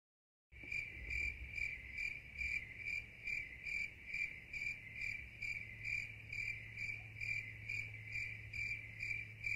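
A high, chirping tone of one even pitch, repeating evenly about two and a half times a second over a low steady hum. It begins about half a second in and cuts off abruptly at the end.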